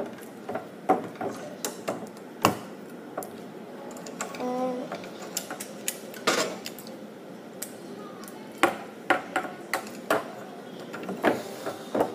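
Plastic Lego bricks and plates clicking and knocking irregularly as they are pressed together, shifted and set down on a table.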